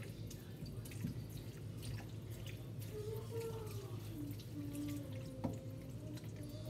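Faint dripping water at a kitchen sink, with scattered light clicks over a steady low hum.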